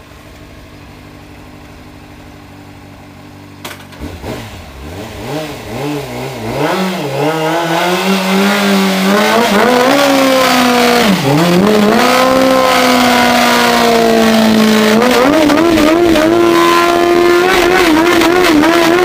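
Honda CBR600RR inline-four with a Hindle aftermarket exhaust idling, then revved up about four seconds in and held at high revs for a burnout. The revs dip briefly midway and jump higher near the end, wavering there.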